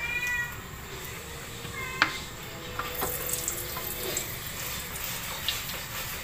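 Cooking oil poured from a plastic bottle into an aluminium wok, the stream splashing on the metal pan with a steady hiss-like sound from about three seconds in. A sharp click comes about two seconds in, and a short high warbling tone at the very start.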